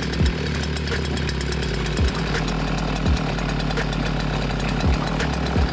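Small gasoline grass-trimmer engine running steadily on a homemade scooter, with a few irregular low thumps.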